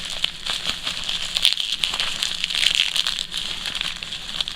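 Packaging crinkling and crackling with many small clicks while it is handled and the tape on it is picked at to open it.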